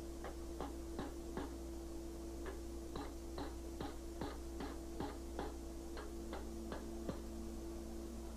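Hammer tapping a chisel into a red-hot iron wolf head held in a vise, cutting in the ears: short, crisp strikes about two to three a second, with a pause about two seconds in, over a steady hum.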